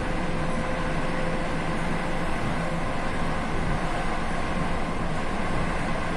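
ED4M electric multiple unit running steadily along the line: an even rumble of wheels on rails, with a faint steady whine on top.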